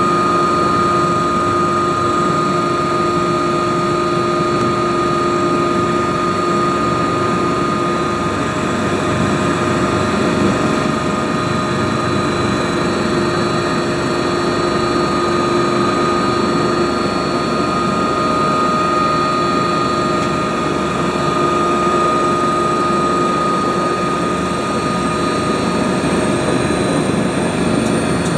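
Helicopter turbine engines and rotor running steadily, heard from inside the cabin while the aircraft is still on the helipad before lift-off: a loud drone with a constant whine. A thin high whine climbs slightly near the end.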